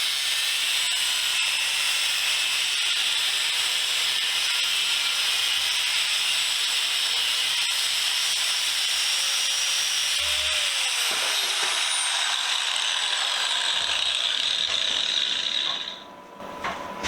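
A power tool with an abrasive cut-off wheel grinding through the metal body of a small bench vise, making a steady high hissing whine that cuts off about a second before the end.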